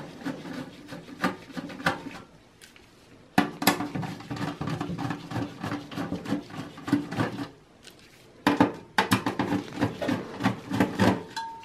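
Screwdriver backing screws out of a desktop PC's motherboard in its steel case: quick metallic clicking and rattling in two long runs, the first starting about three and a half seconds in and the second near nine seconds.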